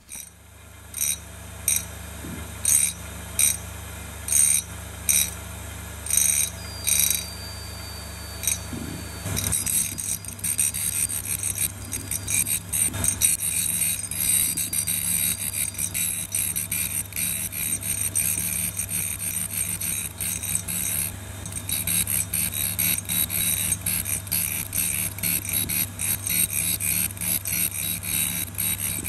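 Tool and cutter grinder's diamond wheel grinding a high-speed steel tool bit, over the steady hum of the grinder's motor. For the first nine seconds the bit touches the wheel in a quick regular run of short grinding passes, a little over one a second. After that the grinding is continuous and scratchy.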